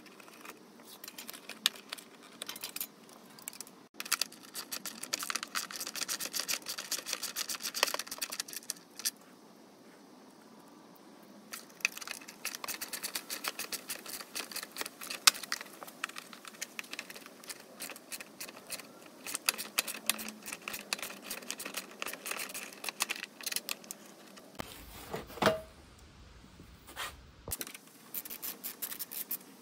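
Socket ratchet clicking in quick runs as bolts are undone on a motorcycle frame, in several spells with short pauses, mixed with light clinks of tools and metal parts.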